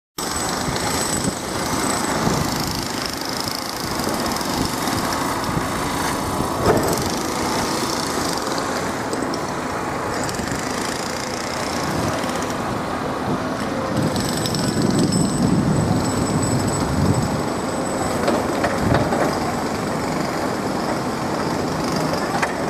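Steady rumble and noise of a moving vehicle, running evenly without a break.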